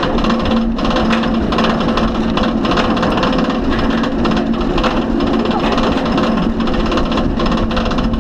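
Roller coaster chain lift hauling the train up the lift hill: a dense, rapid, steady clatter with a low steady hum underneath.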